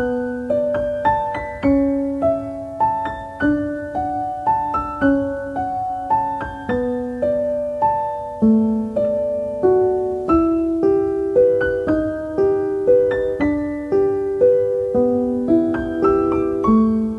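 Background piano music: a gentle melody of single struck notes at a steady, even pulse.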